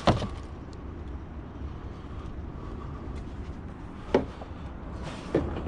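Van engine idling with a steady low rumble, a knock just at the start and a sharp click about four seconds in.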